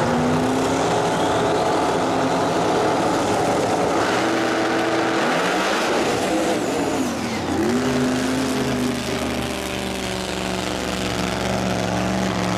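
Two no-prep drag racing cars' engines revving hard at the starting line, then launching and accelerating down the track. The engine pitch drops and climbs again at the gear changes.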